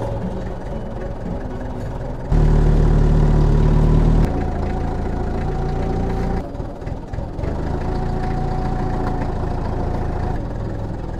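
A heavy engine running steadily at idle, much louder for about two seconds shortly after the start.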